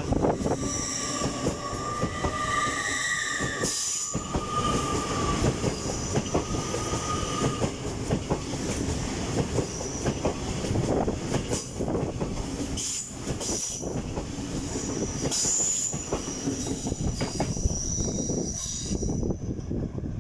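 LNER Class 800 Azuma train moving off along the platform: a steady rumble of wheels on rail with high whining and squealing tones, and several sharp clacks as the wheels cross rail joints.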